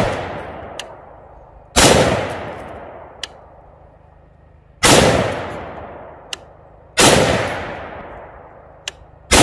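An AR-style rifle firing four single shots a few seconds apart, the last right at the end, each trailing off in a long echo. A faint sharp click falls between each pair of shots.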